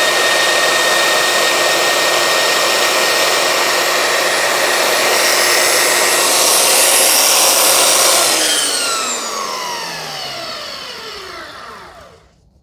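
Makita 9403 4×24 belt sander running steadily, at first grinding a point onto a hard laurel-wood stick. About eight seconds in it is switched off, and the motor and belt spin down with a falling whine that dies out near the end.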